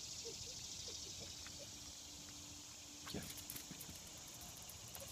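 Bernese mountain dog's paws and claws tapping and scraping on brick pavers as it paws at the ground: a few faint scuffs at first, then a knock and a run of quick clicks from about three seconds in.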